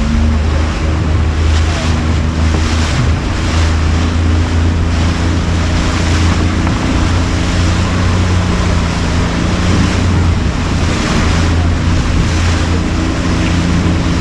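Fishing boat's motor running with a steady low drone, under wind buffeting the microphone and the rush of water against the hull.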